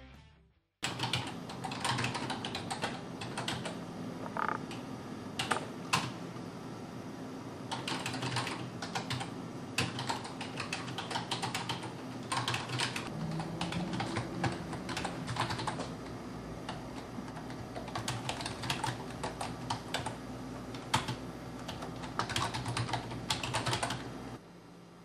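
Typing on a computer keyboard: quick, irregular key clicks that start about a second in and stop abruptly near the end.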